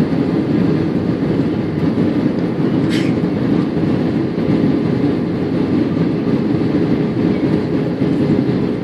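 Steady cabin noise inside an Airbus A320-232 on approach: a constant rush of airflow and engine drone, with one brief high click about three seconds in.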